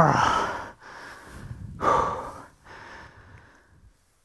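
A man breathing hard after the tension of a close draw on approaching bucks, with heavy breaths about every two seconds.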